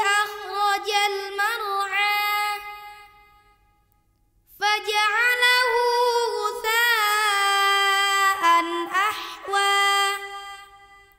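A young girl's solo voice reciting Qur'an verses in melodic tilawah in maqam Hijaz, with long, wavering, ornamented held notes. She fades out a few seconds in, pauses for about a second, then starts a second long phrase that fades near the end.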